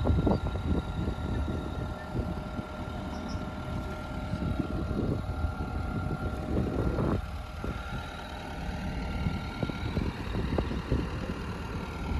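Excavator at work: a steady mechanical whine under irregular crunching and scraping of rock and gravel.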